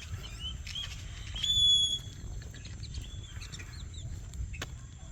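Birds calling: scattered short chirps, with one loud, high, steady whistled note held for about half a second a second and a half in. A steady high hiss runs underneath.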